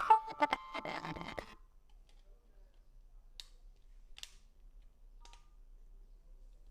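G'Five Disco keypad mobile phone's power-on tune ending about a second and a half in, followed by three short keypad clicks, the last with a brief beep.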